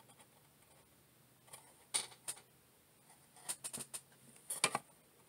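Faint handling noise from cardboard collector cards held in the fingers: a few sharp clicks and light taps, one about two seconds in and small clusters near the end.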